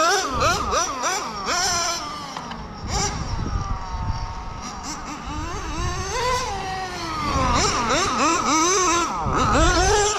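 Nitro RC car's .12 two-stroke engine screaming at high revs, its pitch sweeping up and dropping again several times as it accelerates, lets off and passes.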